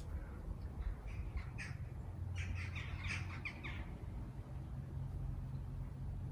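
Birds calling: a run of short, quick calls, most crowded together about two to four seconds in, over a steady low rumble.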